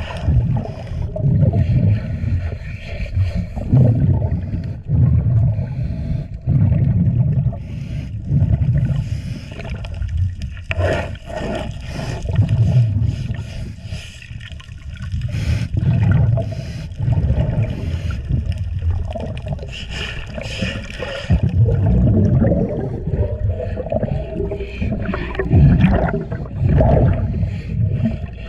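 A scrub brush and pad worked against a boat's fouled hull underwater, in repeated strokes about once a second, mixed with the gurgle of a diver's exhaled breathing bubbles.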